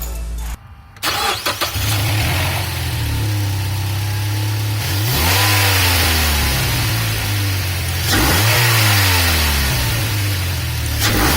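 Mazda3 2.5-litre four-cylinder engine with a K&N short ram intake starting about two seconds in, settling into an idle, then revved three times, each rev rising and falling in pitch.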